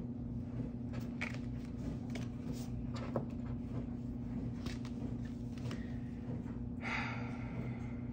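Tarot cards being handled: scattered light taps and clicks, then a short rustle about seven seconds in, over a steady low hum.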